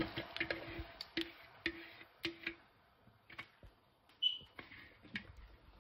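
Marinated chicken tipped from a glass bowl into a pan of oil on low heat: a faint sizzle that dies away over the first couple of seconds, with soft clicks, knocks and a few short squeaks from the bowl and a gloved hand scraping the pieces out.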